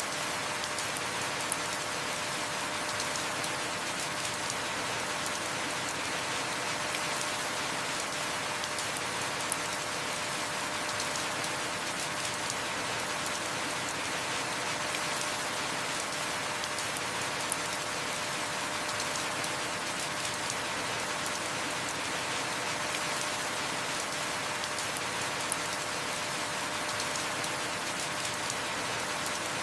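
Heavy rain falling in a steady, even downpour, with a few sharper ticks standing out about every eight seconds.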